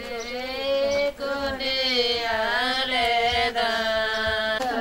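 A voice singing a slow, chant-like melody in long held notes, the pitch wavering and gliding, with short breaks about a second in and again near the end.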